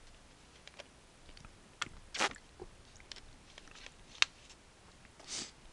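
Quiet room with a few scattered sharp clicks and two short hissing puffs, about two seconds in and near the end; the loudest click comes about four seconds in.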